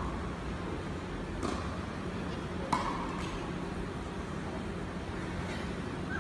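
Tennis balls struck by rackets in a rally: two sharp hits, about a second and a half and nearly three seconds in, each with a short ring, and a fainter hit later. A steady low hum sits under them.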